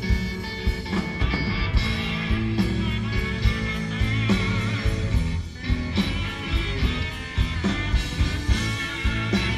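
Live rock band playing an instrumental passage between vocal lines: electric guitars over bass and a steady drum beat, on an audience tape of an arena concert.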